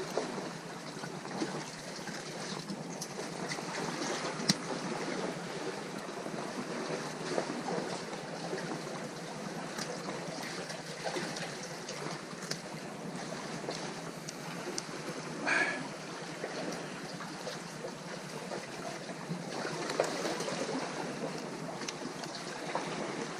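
Sea water washing and splashing steadily, with scattered small clicks and one short squeak about two-thirds of the way through.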